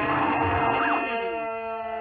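TV commercial soundtrack slowed to about a third of normal speed: the children's laughing voices and music drawn out into long, low, wavering tones that glide up and down, settling into steady held notes about halfway through.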